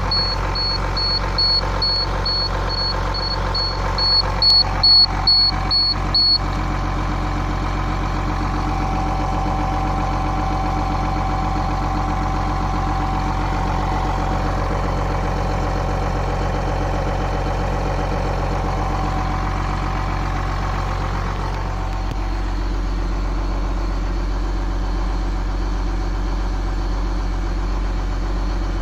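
School bus engine idling steadily, with the dash warning alarm beeping rapidly in a high tone until it cuts off about six seconds in. On this bus the alarm sounds when all the gauges drop to zero, a fault the owner traces to an intermittent electrical connection in the dash wiring.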